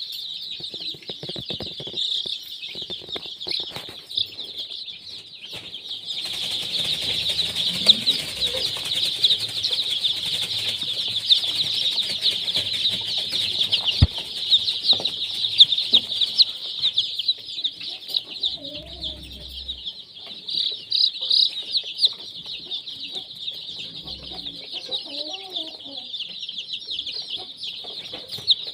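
A crowd of young chicks peeping without pause in a dense, high chorus, louder for about ten seconds from roughly six seconds in, with a few lower hen clucks now and then.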